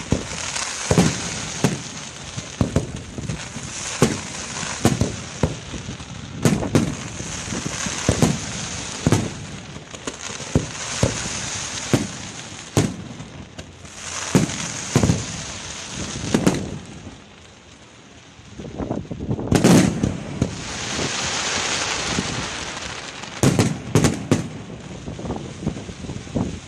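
Aerial fireworks display: a rapid run of shell bursts, sharp bangs every second or less over a steady crackle of glittering stars. The bursts ease off briefly about eighteen seconds in, then the loudest single bang follows, and a quick cluster of bangs comes near the end.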